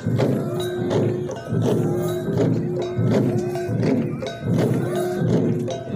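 Many long drums beaten together in a fast, steady rhythm, with a short held note that recurs about once a second over the beat.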